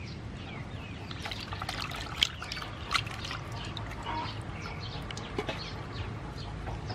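Wet squelching, dripping and small splashes as hands squeeze and rub raw octopus in a basin of water. There are irregular crackles throughout, and two sharper splashes come about two and three seconds in.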